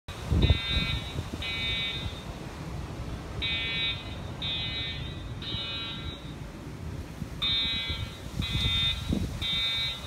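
Building fire alarm sounding a buzzy pulsed tone in the temporal-three evacuation pattern: groups of three beeps, each under a second long, with a longer pause between groups. A low rumble runs underneath.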